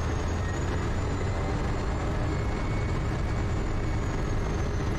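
Quest Kodiak's PT6 turboprop engine running steadily at low power while the plane taxis, a low hum under a faint high turbine whine that drifts slightly in pitch.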